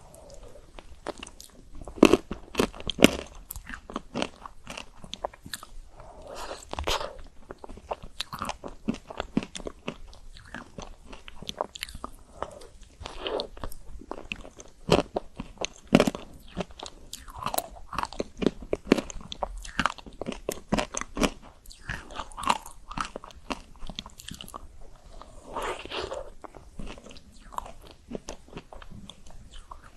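Close-miked biting and chewing of chocolate-coated ice cream: crisp crunches of the chocolate shell with softer wet chewing in between, the sharpest bites about two, three and sixteen seconds in.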